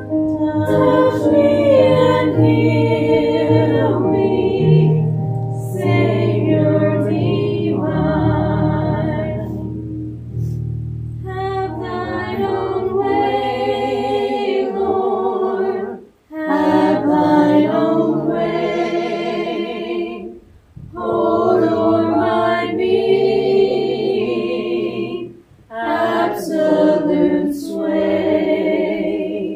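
A church congregation singing a hymn, line by line with short breaks between phrases. A low steady accompaniment note lies under the voices for about the first half.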